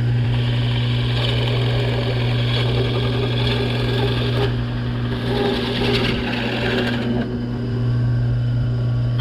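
Power drill running steadily while boring a 3/4-inch hole through plywood. The bit's cutting noise swells and fades as it bites into the wood, and the motor stops suddenly near the end.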